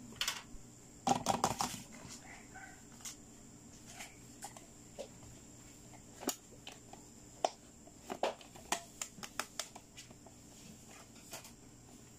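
Hands handling a plastic push-bubble game toy: light, irregular clicks and taps of plastic, with a quick flurry of clicks about a second in.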